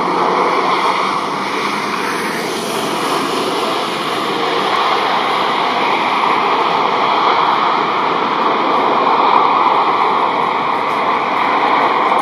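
Jet engine roar from a Boeing 737-800's CFM56 engines as it decelerates down the runway after touchdown: a loud, steady rush of noise with a faint steady whine over it, cutting off abruptly near the end.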